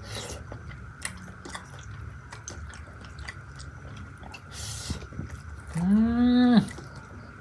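A person chewing a mouthful of chicken and bottle-gourd curry, with small wet mouth clicks throughout. About six seconds in comes a short voiced sound of enjoyment that rises in pitch and then holds.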